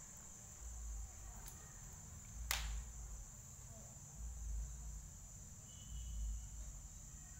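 Cricket trilling in one steady high tone, faint, with a single sharp click about two and a half seconds in and soft low thuds about every second and a half.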